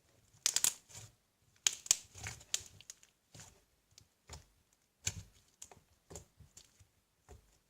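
Slime being stretched and squished by hand, making irregular sticky clicks, pops and crackles in short clusters with pauses between them.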